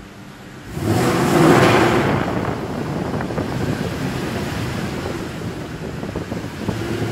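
Mercedes-Benz C63 AMG's naturally aspirated 6.2-litre V8 rising in a burst of revs about a second in, then running steadily at low speed inside an enclosed underground car park.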